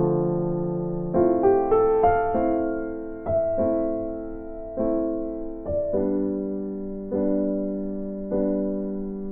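Instrumental background music: slow, soft keyboard chords struck about once a second, each ringing and fading, with a quick run of notes a second or so in.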